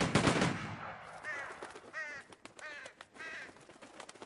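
A volley of rifle shots from a firing squad dies away in an echo at the very start. Then crows caw, about four harsh calls spread over the next few seconds.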